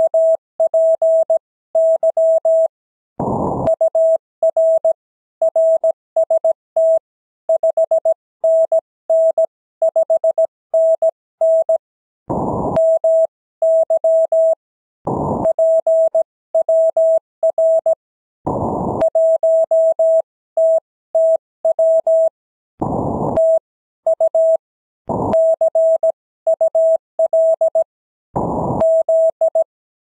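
Amateur radio Morse code (CW): a single steady tone of about 650 Hz keyed on and off in dots and dashes, sending the sign-off of a contact. Every few seconds, between groups of characters, a short burst of hiss breaks in.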